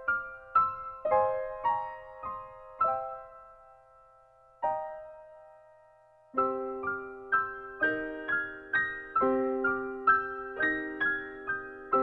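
Background piano music: slow, soft single notes, a brief pause, then fuller, lower chords from a little past halfway.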